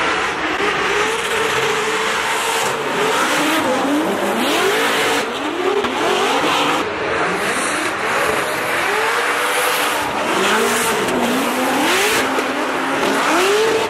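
Formula Drift cars drifting through a turn: engines revving hard over and over, the pitch climbing about once a second, over a loud haze of tyre squeal.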